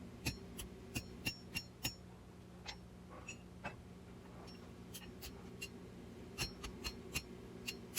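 Hand-hammer blows on hot steel over a hardy cutter in the anvil, cutting through the bar stock. Each strike gives a short, high metallic ring, in three quick runs of blows with short pauses between.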